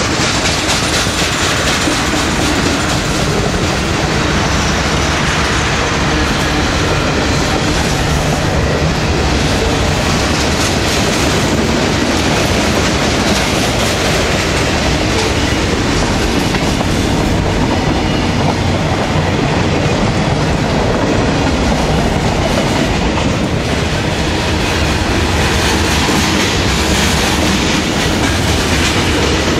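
Freight train cars (covered hoppers, boxcars and tank cars) rolling past: a loud, steady rumble and clickety-clack of steel wheels over the rails.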